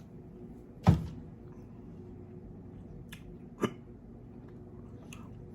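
A man hiccuping twice, a loud sudden hiccup about a second in and a weaker one nearly three seconds later, after swallowing food without chewing it properly.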